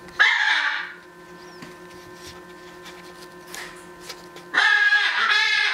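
A parrot gives one short, harsh squawk just after the start over a steady low hum; near the end a loud, pulsing sound with a clear pitch sets in and repeats about twice a second.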